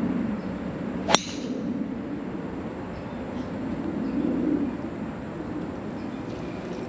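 A golf driver striking a teed ball, one sharp crack with a brief ring, about a second in, over a steady low hum.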